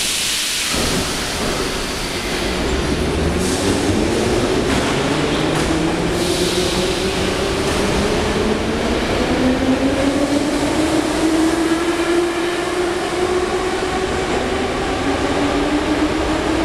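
Moscow Metro train pulling out of the station. Its traction motors whine in several tones that rise slowly in pitch as it gathers speed, over the steady rumble of the wheels on the rails.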